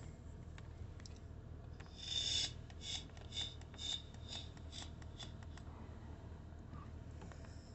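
Rustling and scraping close to the microphone, a quick run of short strokes starting about two seconds in, over a low steady hum.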